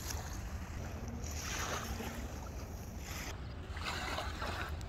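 Wind rumbling on the microphone at the seashore, with small waves washing in. The hiss swells about a second in and again near four seconds.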